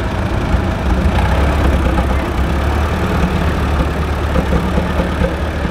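Antique Allis-Chalmers tractor engine running at low speed, a steady low rumble that grows a little louder about a second in.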